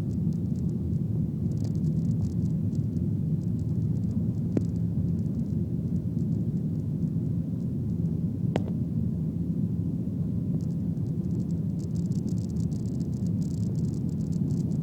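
Steady low rumble of an airliner's jet engines at low power, heard inside the passenger cabin, with a couple of faint clicks.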